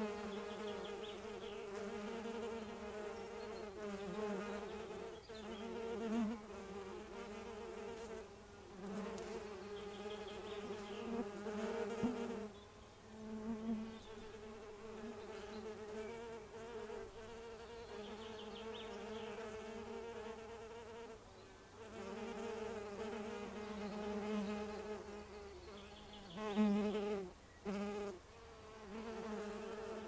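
Bumblebee buzzing in flight: a low, droning hum that swells and fades as the bee moves closer and away, with a few brief drops, and is loudest near the end.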